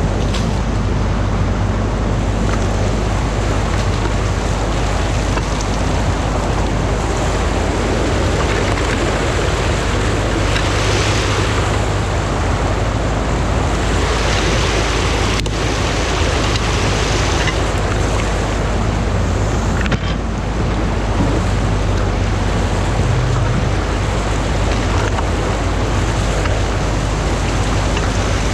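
Stream water pouring over a concrete weir in a steady rush, with an excavator engine running steadily underneath.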